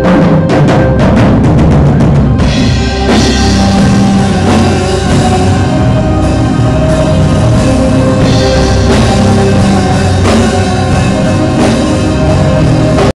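Live rock band playing loud, heard by the audience. Drums hit densely for the first two seconds or so, then the full band comes in with drums, keyboards and guitar.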